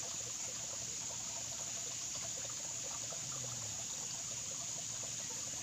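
Steady trickle of running water, with a constant high-pitched hum over it.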